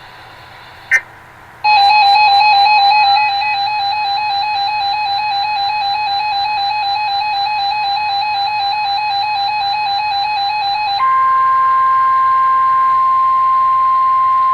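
Emergency alert tones on a Radio Shack 12-521 weather radio. A single click comes first, then about two seconds in a loud, steady electronic alert tone holds for about nine seconds. Near the end it switches to a single pure, steady tone, the weather radio warning alarm tone that heralds a severe thunderstorm warning.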